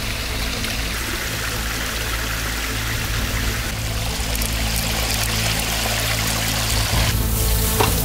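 Shallow stream water running over rocks, a steady rush that grows louder about seven seconds in.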